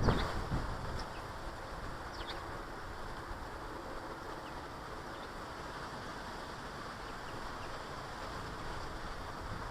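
Garden ambience: a steady low rush of outdoor background noise, with a few faint, short bird chirps scattered through it, most of them in the first half. A brief louder swell comes right at the start.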